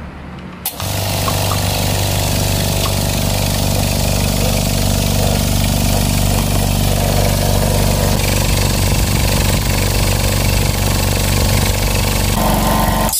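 Small two-cylinder piston air compressor switched on with a click, then running steadily as it pumps up the tank. Near the end it stops at full pressure with a short hiss of released air.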